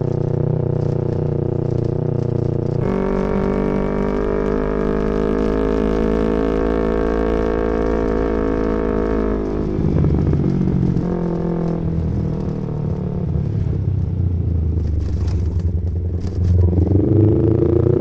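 Yamaha MT-25's parallel-twin engine under way. It runs low for the first few seconds, then the revs climb steadily from about three seconds in, ease off around nine and a half seconds, and pull up again near the end.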